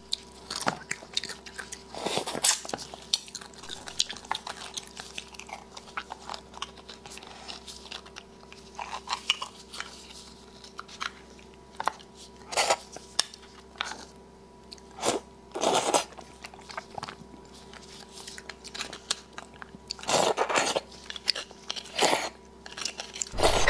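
Close-miked mouth sounds of eating braised beef bone marrow: wet chewing and sucking, marrow slurped from the hollow bone, coming in irregular bursts with pauses between.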